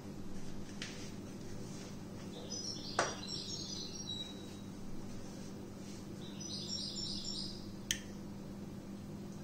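A small bird chirping in two short runs of quick high notes over a steady low hum. Two sharp clicks are heard, about three seconds in and near the end.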